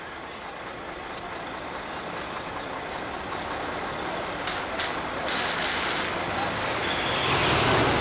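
A heavy truck running, its steady rumble growing louder through the second half. A few sharp clicks about halfway through.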